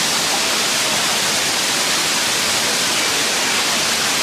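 Waterfall running full after rain: a loud, steady rush of falling water.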